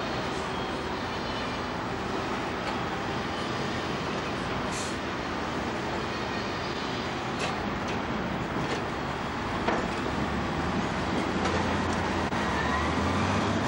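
Wheel loader's diesel engine running steadily while it works its log grapple, with a few short sharp noises in the middle; the engine note grows a little louder and deeper near the end.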